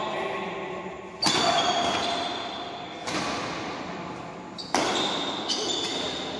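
Badminton racket strikes on the shuttlecock during a doubles rally: three sharp hits about a second and a half apart, each echoing in a large hall.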